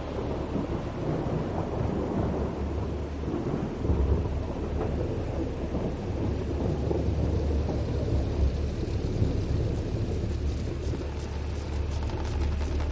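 A deep, steady rumble with a soft noisy hiss above it, and faint light crackling near the end.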